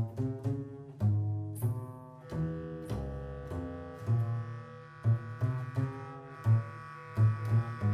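Double bass and bass clarinet improvising together in free jazz: a run of short, sharply attacked low notes, with a higher tone held steady above them from about a second and a half in.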